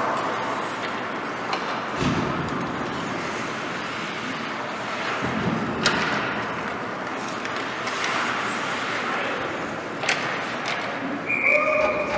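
Ice hockey play in a rink: a steady scrape and rumble of skates on the ice, with sharp knocks of sticks and puck about two, six and ten seconds in. A brief high call sounds near the end as the goalie covers the puck.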